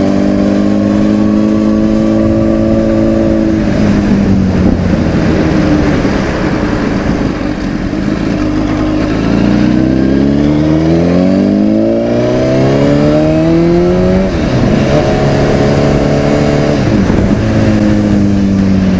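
Sport motorcycle's engine heard from on board while riding: it runs steadily, eases off about four seconds in, then climbs in pitch under acceleration from about nine seconds. A gear change drops the note about fourteen seconds in, and it settles to a steady cruise with another short dip near the end.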